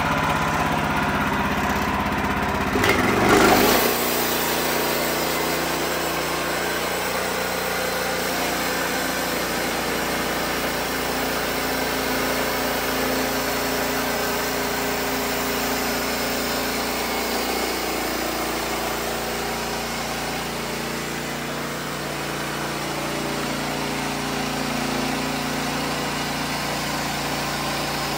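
Wood-Mizer LX-series portable bandsaw mill running steadily, its engine under load as the band blade saws a pine log into boards; a brief louder burst about three seconds in.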